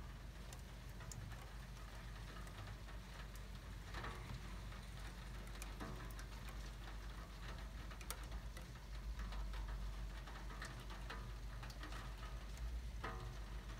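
Light rain falling, with many scattered drops ticking sharply at irregular times on nearby surfaces.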